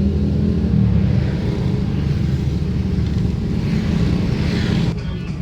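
Large bus diesel engine running close by with a deep, steady rumble. A hiss builds over it near the end, then the level drops suddenly.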